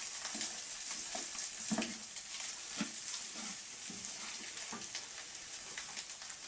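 Fried rice sizzling in a frying pan as it is stirred, a steady hiss with scattered clicks and scrapes of the spoon against the pan.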